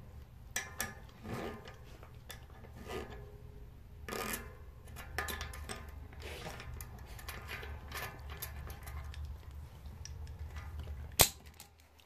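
Metal tools clinking and rattling on a bicycle cassette as a lockring tool is worked with a wrench, with a length of chain wrapped round the cogs to hold them. There is one sharp metallic click about eleven seconds in, over a low steady hum.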